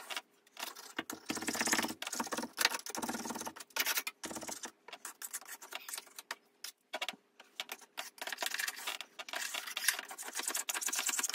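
Wallpaper scraper scraping water-soaked backing paper off a wall, in bursts of quick scraping strokes with short pauses between them.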